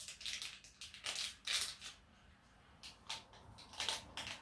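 Crinkling and rustling of a powder sachet being shaken and tipped out into a mug, in several short bursts.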